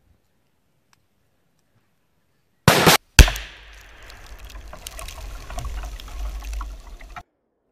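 A 20 lb Tannerite charge detonated by a 5.56 rifle round: a loud sharp crack, then about half a second later a heavier blast, followed by a deep rumbling, crackling tail of several seconds that cuts off suddenly.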